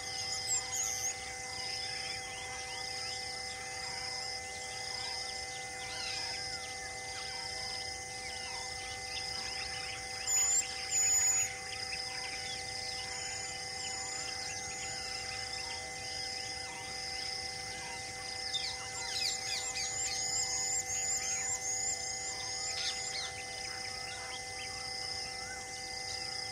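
Forest ambience: birds calling, with a high chirp repeating about once a second and a run of quick rising chirps later on, over a faint steady hum.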